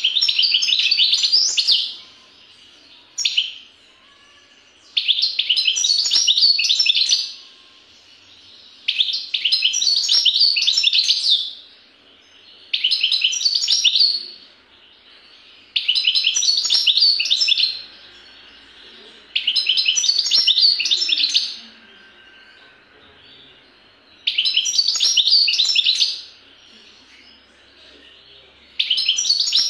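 European goldfinch singing: about eight phrases of rapid, high twittering notes, each about two seconds long, separated by short pauses.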